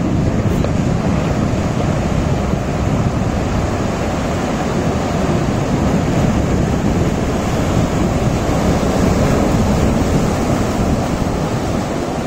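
Sea surf breaking and washing over boulders on a rocky shore, a loud, steady rush of water, with wind buffeting the microphone.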